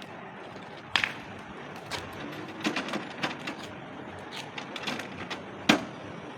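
Irregular clicks and clatter of parts and tools being handled, with two sharper knocks, one about a second in and a louder one near the end, over a steady background noise.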